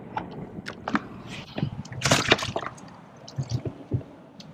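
Water sloshing and splashing around a kayak with scattered clicks and knocks while a freshly caught Spanish mackerel is handled; the loudest is a brief splashy burst about two seconds in, followed by a few dull thumps.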